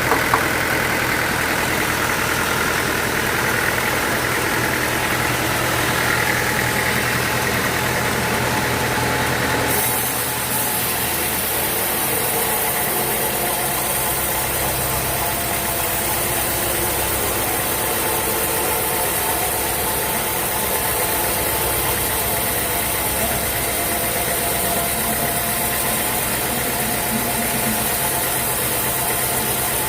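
Sawmill machinery running steadily, a continuous mechanical drone; its sound changes abruptly about ten seconds in.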